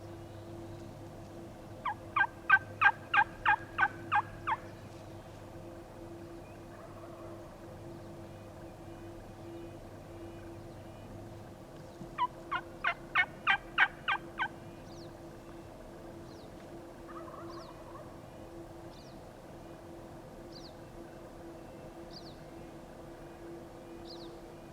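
Turkey calling: two runs of about nine evenly spaced, loud hen yelps, each answered a few seconds later by a fainter, more distant sound. It is typical of a hunter calling to make gobblers answer.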